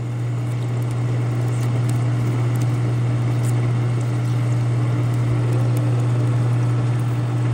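13x40 manual metal lathe running steadily while a high-speed steel parting blade cuts into a 304 stainless steel bar, with a constant low hum under the cutting noise.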